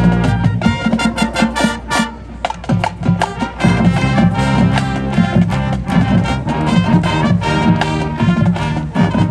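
High school marching band playing a brass-led up-tempo tune over a drumline beat, with a brief quieter, thinner passage about two seconds in before the full band comes back in.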